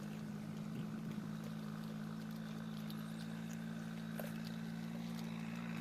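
A steady low mechanical drone, like a distant motor running, with a few faint ticks over it.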